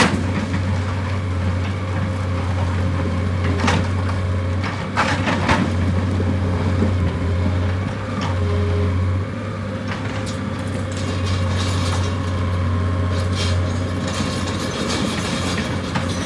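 Heavy diesel engine running steadily with a low, constant drone, with scattered knocks and clatter over it, more of them about two-thirds of the way through.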